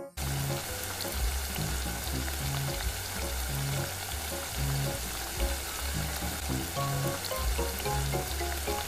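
Small beef patties sizzling steadily in hot oil in a miniature wok, over soft background music.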